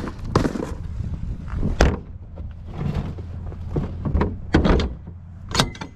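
Cardboard boxes being put back into a rubbish bin: a string of about seven sharp knocks and thuds, the loudest just after the start, near two seconds and near the end, over a steady low hum.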